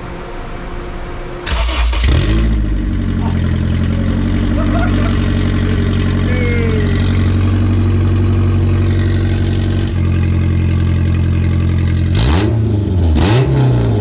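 Honda S2000's four-cylinder engine started open header, with the catalytic converter removed so the exhaust exits straight from the header. It catches about a second and a half in, settles into a steady idle, and is given two short revs near the end.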